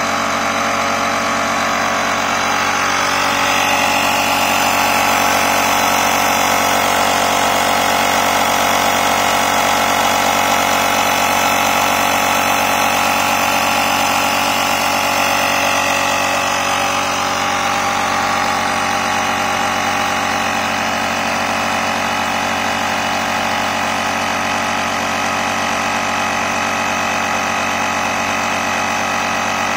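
The small piston air compressor built into a Motomaster Eliminator 1400 booster pack runs steadily as it inflates a car tyre, the pressure slowly rising toward 30 PSI. It is a little louder for a stretch in the middle.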